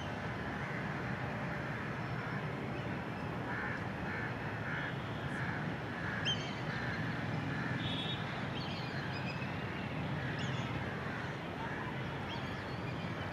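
Steady outdoor background noise with a run of short, evenly repeated bird calls a few seconds in, and a few scattered higher chirps.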